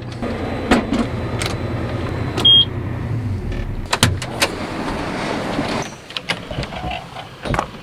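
Combine engine humming low and steady, fading out about four seconds in. A single short beep comes about halfway through that hum, then clicks and knocks of the cab door and of steps down the combine's metal ladder, and a door knob rattling near the end.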